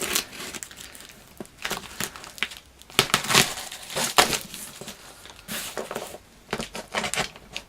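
A cardboard parcel being opened and handled, with crinkling, rustling packaging in irregular bursts, loudest about three and four seconds in.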